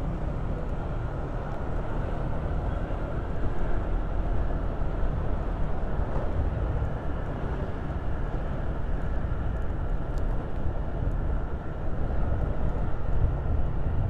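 Motorcycle riding along, heard from the rider's own microphone: steady engine and road noise over a low rumble.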